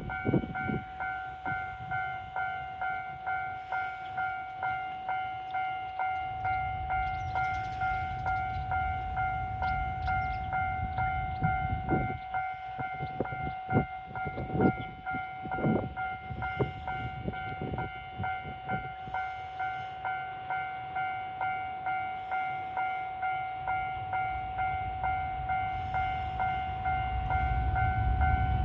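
Japanese railway level-crossing alarm ringing its electronic "kan-kan" bell over and over in a steady rhythm. A low rumble swells near the end, and there are a few dull thumps in the middle.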